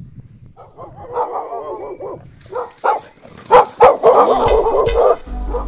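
A dog whining, then barking sharply several times. Music with a low bass comes in near the end.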